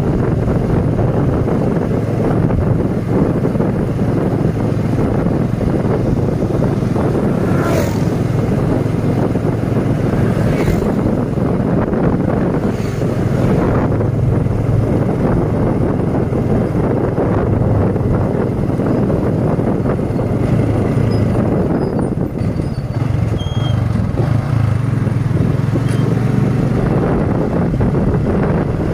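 Motorcycle engine running steadily while riding at road speed, mixed with wind noise on the microphone.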